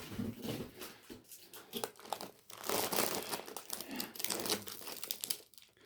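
Plastic snack wrappers and packaging crinkling and rustling as packets are handled, in irregular bursts.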